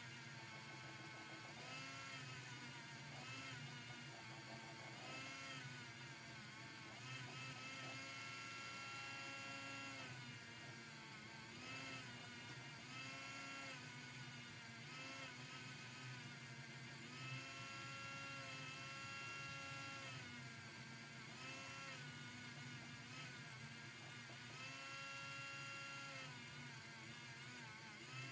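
A small high-speed electric motor, like a hand-held rotary tool, whirring and speeding up and slowing down over and over, its pitch rising, holding for a second or two, then falling.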